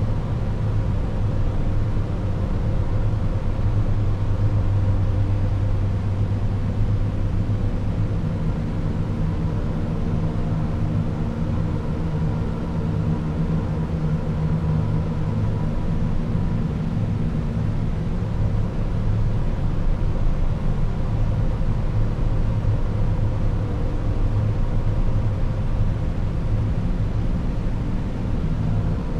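Synthesized red noise, resonated, granularized, spectrally scanned and reverbed in a software modular patch: a steady, dense low rumble with faint resonant pitches drifting slowly inside it. A slightly higher layer of the rumble swells in about a quarter of the way through and holds.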